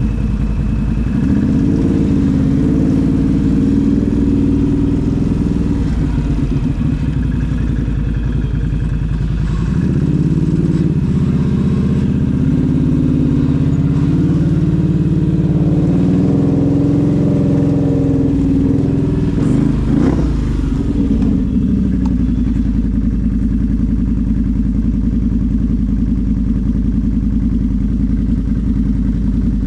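ATV engine running under load in four-wheel drive, low range, through soft mud, its revs rising and falling repeatedly, then holding a steady pitch for the last several seconds.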